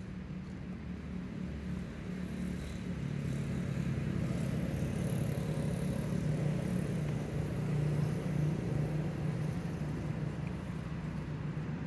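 A motor engine's steady low hum, growing louder through the middle and easing off near the end.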